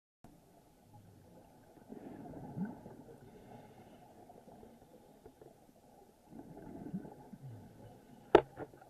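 A scuba diver breathing underwater through a regulator, heard muffled: two rushes of exhaled bubbles about four seconds apart, then a sharp click near the end.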